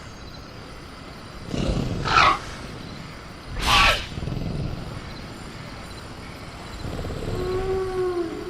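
Sound-designed velociraptor calls: two loud, short shrieks, each sliding down in pitch, about two and four seconds in, then a lower, drawn-out call that bends in pitch near the end, over a steady background ambience.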